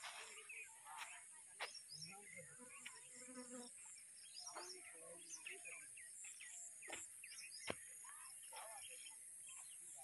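Birds chirping and calling over a steady high-pitched insect drone, with a few sharp clicks, the loudest about three quarters of the way in.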